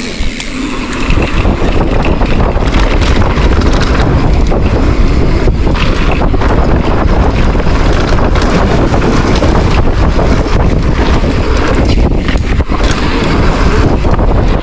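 Loud wind buffeting the microphone while moving at speed, with a heavy low rumble underneath. It builds over the first second and then holds steady.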